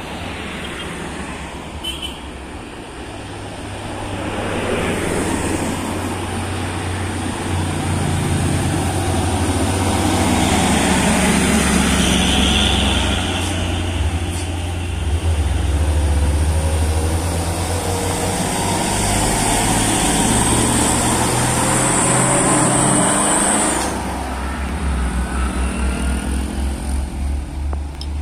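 Heavy diesel trucks passing close by one after another, their engines labouring in a low rumble that swells over the first few seconds and holds loud until about four seconds before the end. A motorcycle passes among them, and the rumble pulses unevenly near the end.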